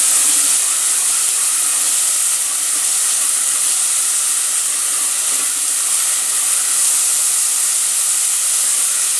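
Green peas and carrots frying in hot coconut oil in a pot: a steady sizzle.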